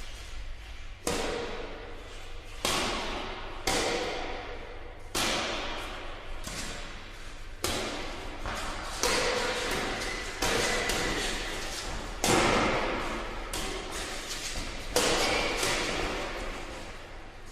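Badminton rally: racket strings striking a shuttlecock about a dozen times, roughly one hit every second or so, each hit ringing on in a reverberant indoor sports hall. The hardest hits, smashes, come about twelve and fifteen seconds in.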